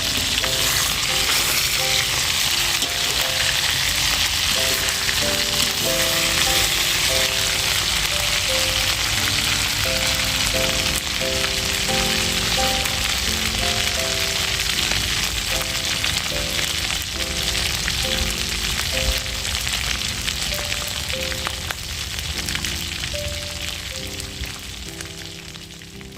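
Small fish deep-frying in hot oil: a steady, dense sizzle that fades over the last few seconds. A light melody of background music plays underneath.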